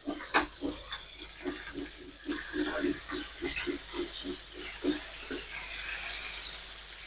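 A rhythmic series of short, low knocks, about four a second, that stops about five seconds in, over a faint hiss.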